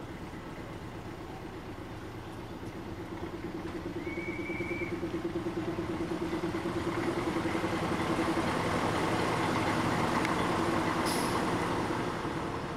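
ČD class 742 diesel-electric locomotive's six-cylinder diesel engine running, its steady note growing louder through the middle and easing near the end. A brief high tone sounds about four seconds in.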